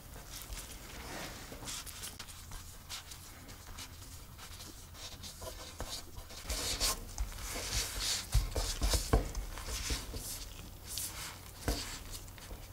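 Dough being rolled into a filled log and stretched by gloved hands on a wooden table: soft rubbing and rustling of dough and gloves against the wood. It gets busier in the second half, with a few soft thumps.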